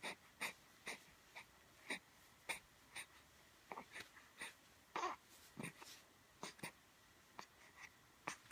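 A rapid series of short, soft sneeze-like snorts, one or two a second, several ending in a brief falling squeak.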